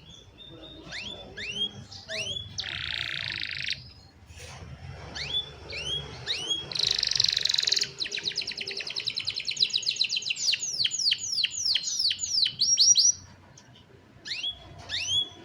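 Young domestic canaries singing: quick rising whistled notes, two short buzzy rasps about 3 and 7 seconds in, then a long fast trill running into a string of sweeping notes. The song breaks off briefly near the end, then more rising notes follow.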